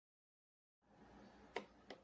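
Two short, sharp clicks about a third of a second apart over faint room noise, which starts after a moment of dead silence.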